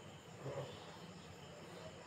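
Faint murmur of an outdoor crowd, with a brief voice about half a second in.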